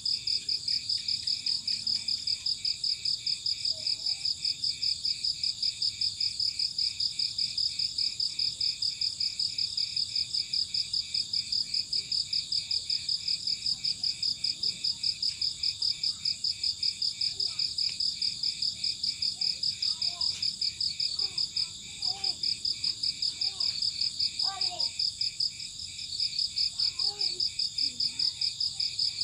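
Cricket chirping in a fast, even, high-pitched pulse, about four chirps a second, pausing briefly twice in the second half. Faint short calls sound underneath near the end.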